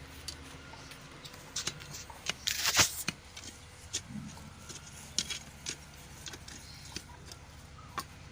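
Goat kids tugging at and eating a bundle of hung-up grass fodder: dry rustling of leaves and stalks with scattered small snaps, and one louder rustle about two and a half seconds in.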